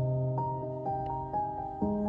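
Soft piano music played back through a Xiaomi Sound Party speaker: single melody notes about twice a second over a held low bass note, which steps up to a new note near the end.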